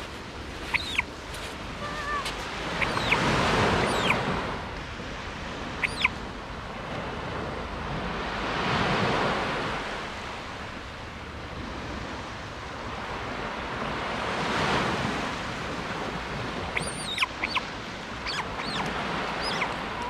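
Surf washing up on a sandy beach, swelling and fading in slow surges every five or six seconds. A few short high chirps sound now and then over it, several near the start and a cluster in the last few seconds.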